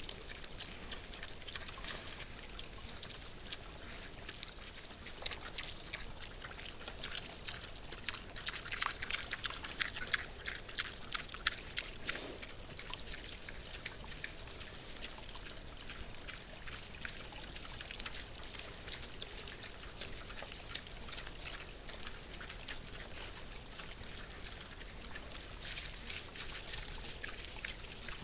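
Wild boars feeding, with a dense run of small crackling, crunching clicks from chewing and rooting, busiest about a third of the way in.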